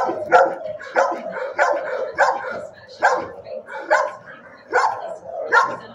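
Dog barking over and over at a steady pace, roughly one and a half barks a second.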